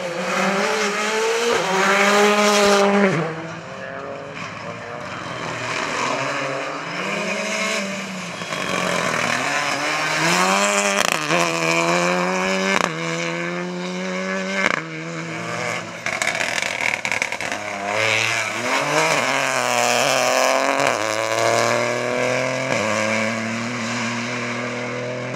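Rally cars at full throttle on a stage, several passes one after another. Each engine revs up in repeated rising climbs through the gears, broken by sudden drops and short cracks at the shifts.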